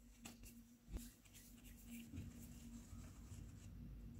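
Near silence: room tone with a faint steady hum, and a couple of faint soft taps in the first second from hands handling a ball of dough.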